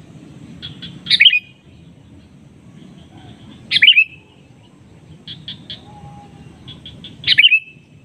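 Male sooty-headed bulbul (kutilang) giving its loud calling song to rivals: three quick chattering phrases about three seconds apart, with short softer notes between them, over a steady low rumble.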